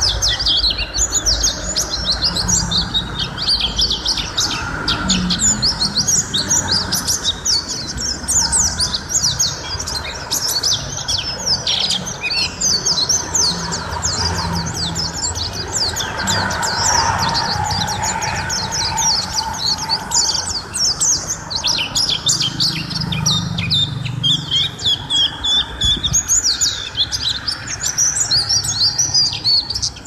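A caged white-eye (pleci) singing: a long, fast, unbroken stream of high twittering chirps, over a low steady background hum.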